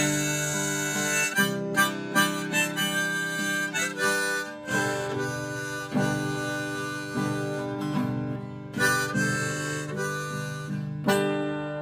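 Harmonica in a neck rack playing a melody of short changing notes over a strummed acoustic guitar: the instrumental break between sung verses.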